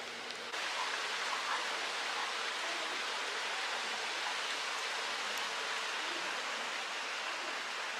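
Steady rush of a small river's flowing water, which begins suddenly about half a second in.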